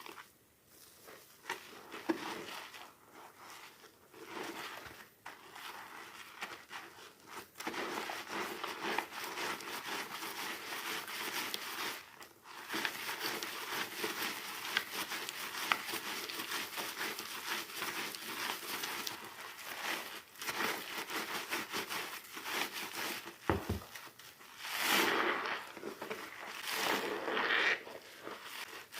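Soaked soap squeezed and crushed by hand, giving a continuous crackling, squishing sound with louder surges near the end.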